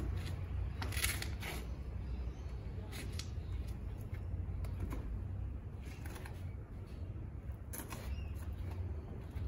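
A person's kung fu movements: about half a dozen short rustles and scuffs of clothing and feet on asphalt, the sharpest about a second in, over a steady low rumble.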